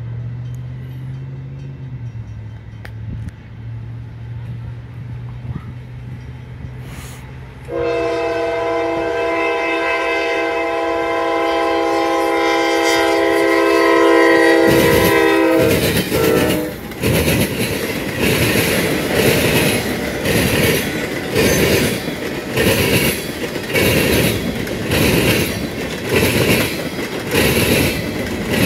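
A CSX GE AC44CW freight locomotive's five-chime air horn blows one long chord for about seven seconds, starting after a low rumble of the approaching train and cutting off about halfway through as the locomotive passes. Loaded freight cars then clatter by with a rhythmic clickety-clack over the rail joints about once a second.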